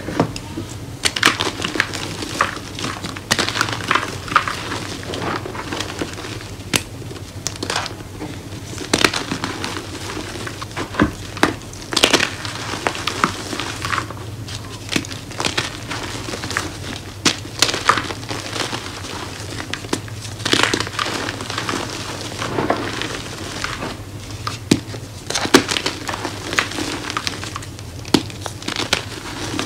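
Homemade gym chalk blocks being squeezed and crumbled by hand into loose chalk powder. The sound is a dense run of dry, irregular crunches and crackles, with sharper snaps here and there as pieces break.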